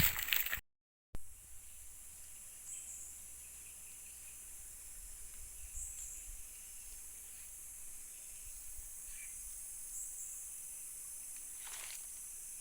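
Tropical forest ambience: a steady high insect drone with a few short, faint high chirps, following a brief break in the sound about a second in.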